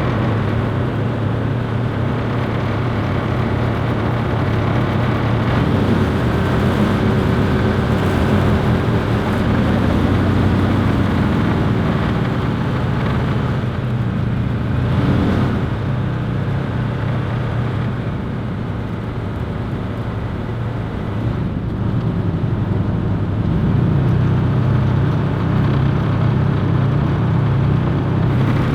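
Ford Trimotor's three radial engines running together: a loud, steady low drone that eases slightly in the middle and builds again near the end.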